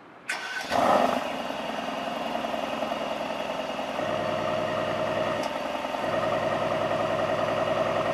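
Mercedes-AMG GLC 63's 4.0-litre twin-turbo V8 starting, heard at its quad exhaust tips: a brief crank, a flare of revs about a second in, then a steady idle that grows slightly louder twice.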